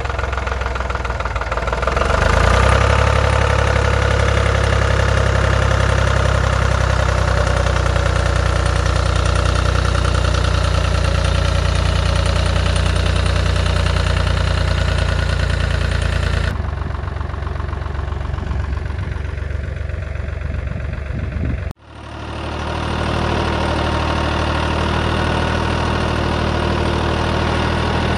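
Diesel engine of a 1980s Ferrari 86RS vineyard tractor running steadily as the tractor is driven, its note rising about two seconds in. Past the middle the sound changes and cuts out for an instant before the engine comes back.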